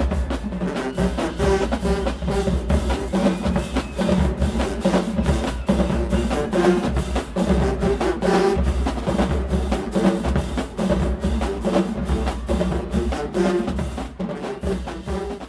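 Marching band drumline playing a fast cadence of rapid snare strokes and drum rolls over pulsing bass drums, easing off near the end.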